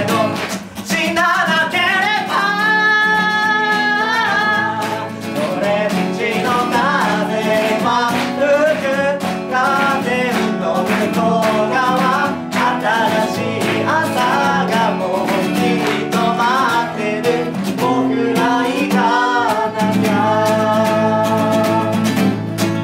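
Acoustic guitar strummed under several voices singing together in Japanese, a live acoustic pop song.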